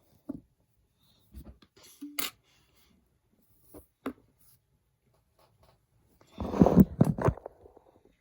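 Handling noises: scattered light clicks and taps, then a louder burst of rustling and knocking about six and a half seconds in.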